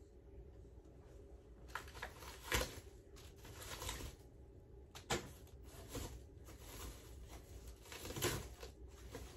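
Thin plastic protective bag being pulled off a guitar, rustling and crinkling in irregular bursts, with three sharper crackles as it is yanked.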